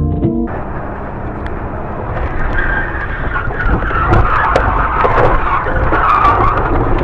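Car noise recorded by a dash camera: road and tyre noise that swells from about two seconds in into a loud tyre skid. A stretch of music ends about half a second in.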